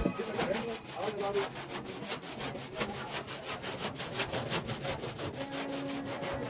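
Quick, evenly spaced back-and-forth rubbing strokes, several a second, like a hand tool working a surface.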